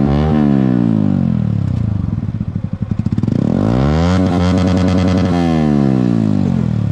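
Vehicle engine revved loud: its pitch falls away at the start, climbs again about three seconds in, holds high for about a second, then drops back toward idle near the end.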